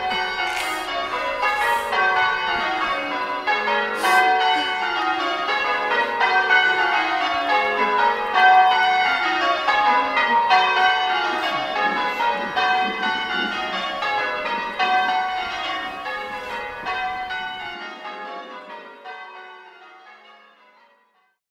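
A peal of church bells, several bells struck one after another in quick falling runs, their ringing overlapping. The peal fades away over the last few seconds.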